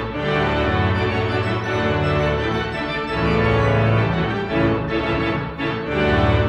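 Music led by sustained organ chords over low bass notes that change about once a second.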